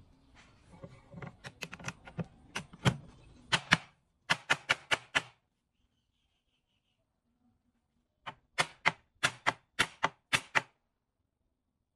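Hammer striking a clamped wooden frame in quick taps: lighter taps at first, then a run of about five sharp blows, a pause of about three seconds, and about eight more blows.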